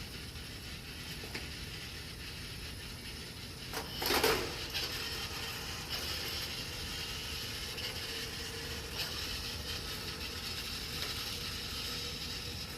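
Roomba robot's drive wheels and motors running as it drives, a steady mechanical whirring rattle, with a brief louder clatter about four seconds in.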